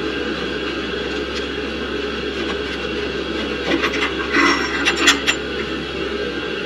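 A steady drone with a low hum under it, and a few clicks and scrapes about four to five seconds in as a combi boiler's recirculation pump is unscrewed and handled by hand.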